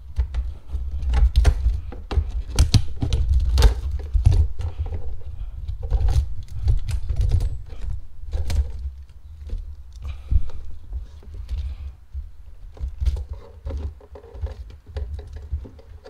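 Irregular plastic clicking, knocking and rattling as a Ford Focus EVAP purge valve is worked and pulled loose from its rubber mounting grommet among the engine-bay hoses. A low rumble of handling noise runs underneath.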